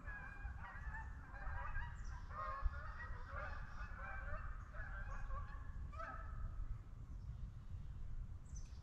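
A flock of wild geese honking, many calls overlapping. The calls thin out about six seconds in and pick up again at the end.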